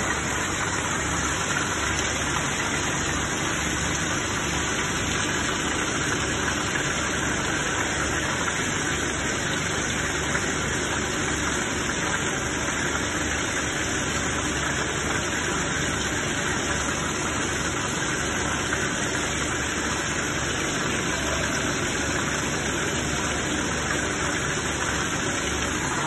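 Dal washing machine running steadily: an even machine drone from its motor-driven shaft, mixed with water rushing through the stainless steel trough and pouring out beneath it.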